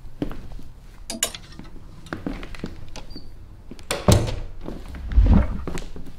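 Moving boxes and the things in them being handled and set down: a run of light knocks and clicks, then two heavy thuds about four and five seconds in.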